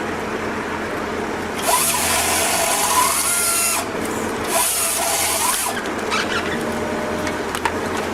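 A machine running steadily, with two bursts of harsh, high-pitched cutting or grinding noise, the first about two seconds long and the second about a second long.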